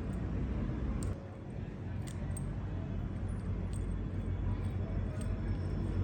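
Steady low rumble, like machinery or an engine running in the background, with a few faint sharp clicks scattered through it.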